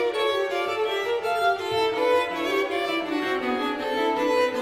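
Violin and cello playing a duet, both bowed: a busy run of notes with the violin on top, and the cello's lower line coming forward near the end.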